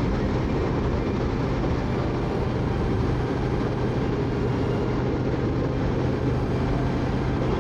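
Motorcycle cruising at steady highway speed: the engine holds one even low hum under constant wind and road noise, with no change in pace.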